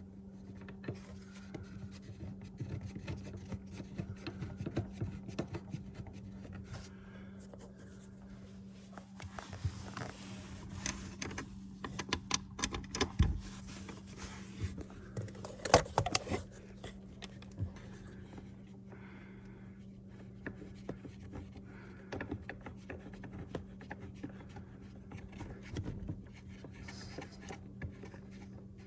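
Hands and tools working in the car's under-seat battery compartment: scraping, rubbing and small clicks, with a few sharper knocks about halfway through, over a steady low hum.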